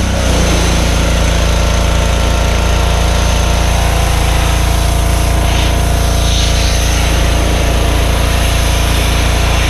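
Small gasoline engine of a Power Stroke 2200 PSI pressure washer running steadily at a constant speed.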